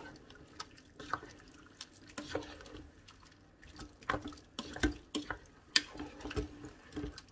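Plastic spoon stirring chicken and vegetables in stock in an electric pressure cooker's inner pot: irregular wet squelches and scrapes, busier in the second half.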